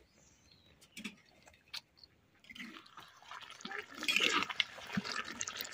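A few light clicks, then, from about two and a half seconds in, a swelling, crackling hiss as water is poured into the pot of browned mutton and spices and sizzles on the hot oil. This is the stage where water is added after the meat has been fried down.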